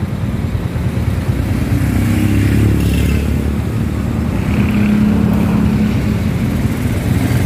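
Motorcycle engine running at low speed with a steady low rumble; the engine note rises and holds briefly twice, about two and five seconds in.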